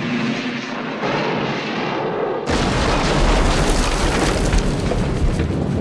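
Steam locomotive crash and explosion: a rushing sound, then about two and a half seconds in a sudden loud blast that carries on as a deep rumble with crashing debris.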